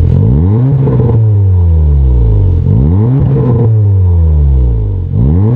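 Porsche Macan 2.0T's turbocharged four-cylinder engine free-revving through an Armytrix cat-back valve-controlled exhaust with the valves closed. The revs climb quickly and drop slowly back toward idle twice, and a third rev begins near the end.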